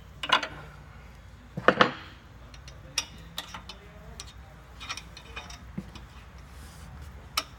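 Metal hand tools clinking and knocking against the floor sander's metal frame during an adjustment: a couple of loud knocks in the first two seconds, then lighter, scattered clicks.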